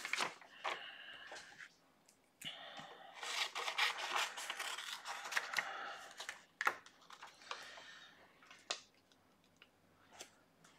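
Squares of diamond-painting cover paper rustling and sliding as they are handled and laid over the canvas, with a few sharp taps and clicks.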